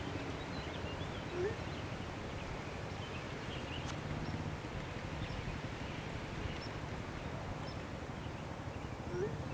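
Steady wind noise outdoors, with scattered faint bird chirps and two short rising calls, one about a second and a half in and one near the end.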